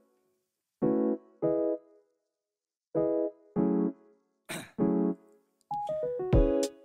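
Background music: a piano-like keyboard plays short chords, mostly in pairs, with silent gaps between them. The playing becomes continuous and busier near the end.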